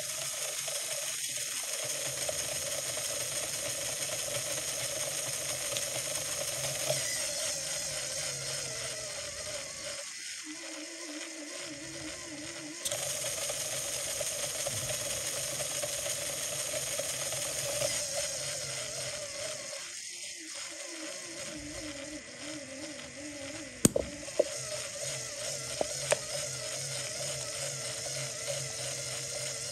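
Motor-driven LEGO Technic plastic gear train running with a steady whir and gear chatter. Its pitch sinks twice, around ten and twenty seconds in, as the pneumatic disc brake loads it, then picks up again. A few sharp clicks near the end.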